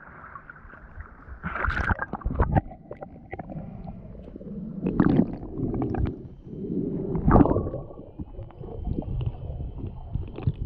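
Water splashing over the camera as it goes under the surface about two seconds in, then muffled underwater gurgling and swishing as a diver swims down, with irregular low knocks and surges.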